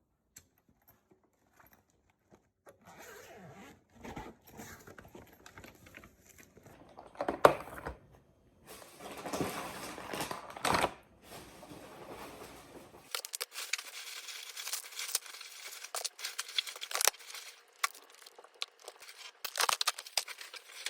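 Packaging being handled: irregular tearing and crinkling with scattered clicks and knocks, one sharp knock standing out about a third of the way in.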